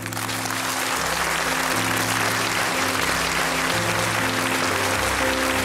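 Studio audience applauding, building at the start and then steady, over closing theme music with sustained low notes.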